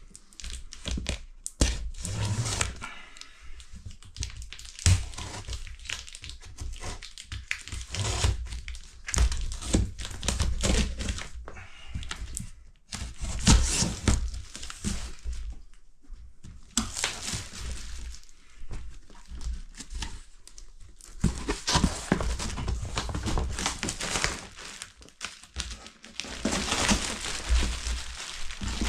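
Packing tape being slit and torn off a cardboard box, with rustling and knocks as the cardboard flaps are opened, then a clear plastic bag crinkling inside the opened box near the end.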